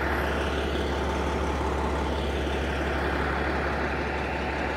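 Ambulance engine running steadily as it pulls slowly away, with tyre noise and no siren.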